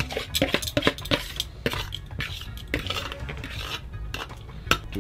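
Cooking utensil clinking and scraping against a pot of soup. There is a quick run of clinks in the first two seconds, then scraping, and one sharp knock near the end.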